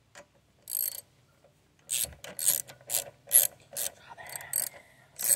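Ratchet wrench clicking as the carburetor mounting bolts are tightened down. There is one short ratchet stroke about a second in, then, from about two seconds in, a steady run of strokes at about two a second.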